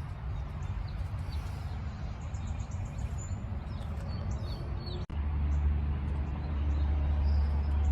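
Steady low rumble with short bird chirps on top. The sound breaks off suddenly about five seconds in, and after the break the rumble is louder and keeps rising.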